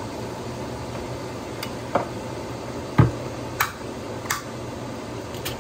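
Canned butter beans being tipped into a pot of simmering stew: several sharp clicks and knocks of the tin and utensils against the pot, the loudest a dull thump about three seconds in, over a steady low hum.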